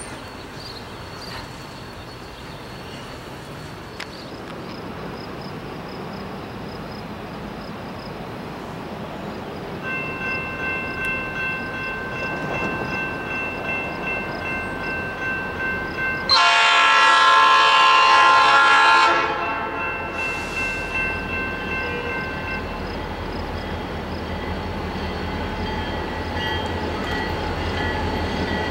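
Norfolk Southern diesel freight locomotive's air horn sounding as the train approaches: a steady chord of several notes, faint at first, swelling into one loud blast of about two and a half seconds, then falling back before it stops. The low rumble of the approaching diesel engines grows louder near the end.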